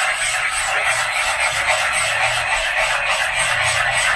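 Wire whisk beating a thickening sauce in a stainless steel pot, a fast, even scraping swish of about four to five strokes a second.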